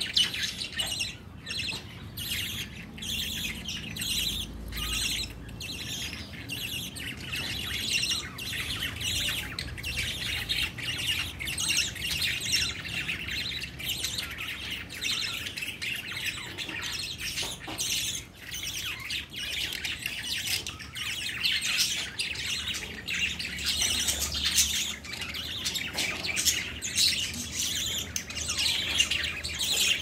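A group of budgerigars chattering: a dense, unbroken stream of short chirps and calls with no pause.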